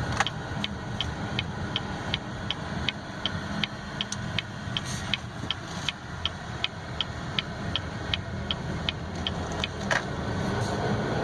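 Turn-signal indicator ticking steadily, about three ticks a second, over the low hum of road and engine noise inside a 2016 Buick Envision's cabin while driving. The ticking stops about ten seconds in.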